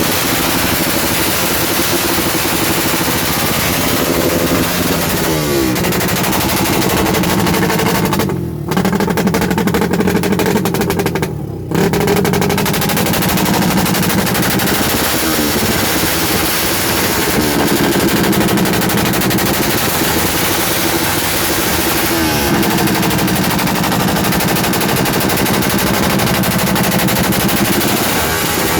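Modified Suzuki Raider motorcycle engine revved again and again through its exhaust, the pitch climbing and falling with each blip of the throttle over a fast, crackling stream of exhaust pulses. The throttle is briefly snapped shut twice, about eight and eleven seconds in.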